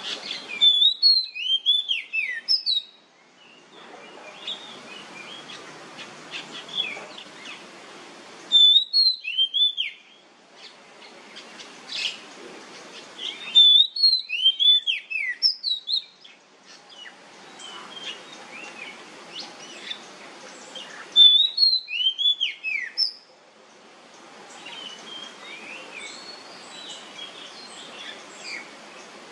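Oriental magpie-robin singing loud phrases of clear, sweeping, falling whistles, four times, a few seconds apart. Between the phrases there is a quieter steady background hiss with faint chirps.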